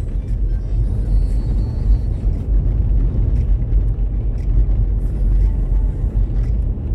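Steady low rumble of a car's engine and tyres heard from inside the cabin, driving over a rough, patched road surface, with faint small rattles now and then.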